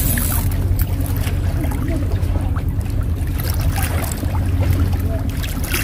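A boat engine running, a steady low drone that holds the same pitch throughout, with a few light clicks over it.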